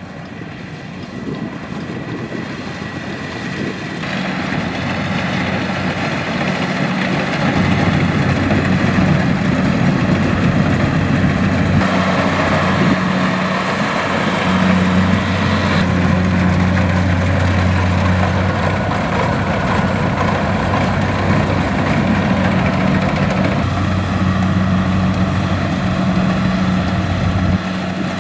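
Kubota DC-70X combine harvester's diesel engine and machinery running steadily, growing louder over the first several seconds.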